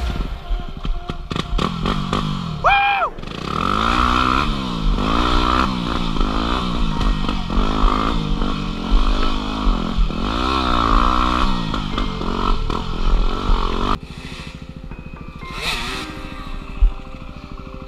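Dirt bike engine revving up and down over and over, its pitch climbing and falling with each burst of throttle and shift. About three-quarters of the way through, the sound drops suddenly to a quieter, more distant engine.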